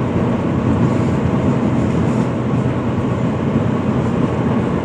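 Turbocharged flat-four engine of a 2006 Subaru Legacy GT, fitted with a used turbo and a catless up-pipe, pulling steadily under load in third gear, heard from inside the cabin with road noise.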